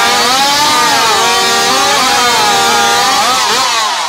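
Piped racing chainsaw running flat out through a cut, its high engine pitch sagging and recovering as the chain loads in the wood, then falling away near the end as the cut finishes.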